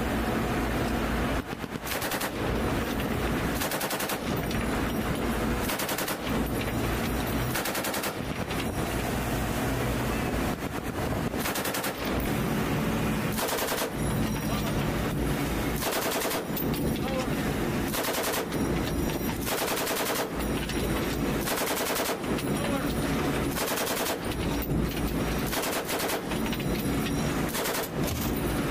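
Pedestal-mounted machine gun on a patrol boat firing repeated bursts of automatic fire.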